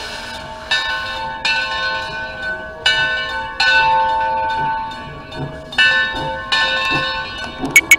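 Calumet 0-6-4T Torch Lake's locomotive bell ringing as the engine moves off, struck about seven times at uneven intervals, each stroke ringing on, with steam hissing from the cylinders underneath.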